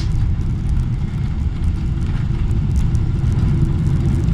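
Boeing 777-300ER cabin noise heard from a window seat: a steady, loud low rumble with a faint steady hum above it.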